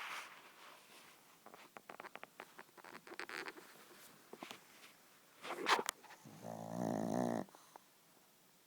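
A pug snoring in its sleep. A run of small clicky, rattling snuffles comes first, then a sharp snort about two-thirds of the way in, then a buzzing snore lasting about a second that stops abruptly.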